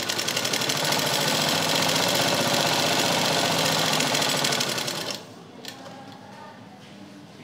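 Sewing machine stitching a lahenga side seam: a fast, even run of needle strokes that grows louder about a second in, then stops abruptly about five seconds in.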